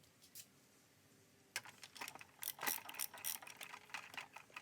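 Irregular metallic clicking and rattling of small steel parts being handled and worked, starting about a second and a half in and continuing in quick uneven ticks.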